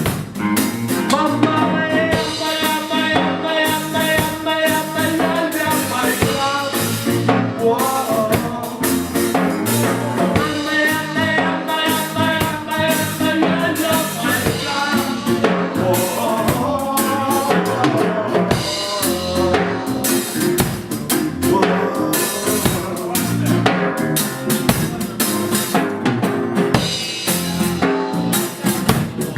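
A live band plays an instrumental break of a reggae song with no singing. A drum kit keeps the beat with snare rimshots and bass drum under guitar.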